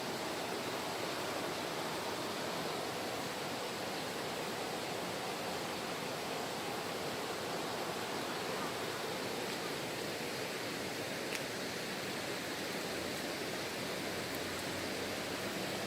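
Mountain valley stream, water rushing steadily over rocks.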